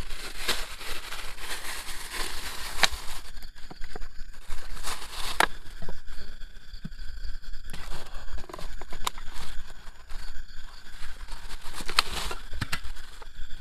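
Rustling and handling noises with a few scattered sharp clicks.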